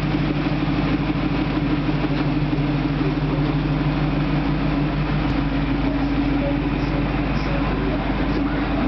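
Shelby Mustang's V8 engine idling steadily, a low, even rumble.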